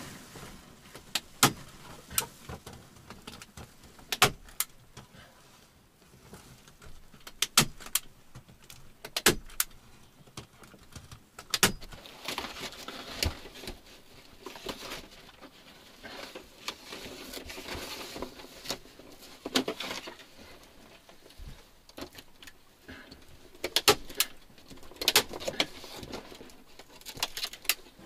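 Irregular sharp clicks and knocks, a dozen or more, with several seconds of rustling about halfway through.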